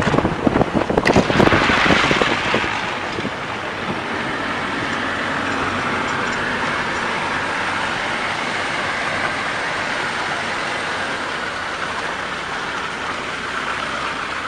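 A car driving on a snowy road, with wind buffeting the microphone in hard gusts for the first two or three seconds, then a steady rushing noise of wind and road.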